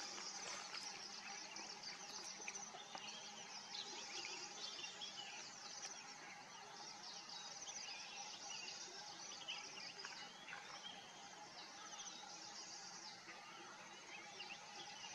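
Faint natural ambience: a dense, steady chorus of many small high chirps and trills from distant birds and insects, with no single loud call.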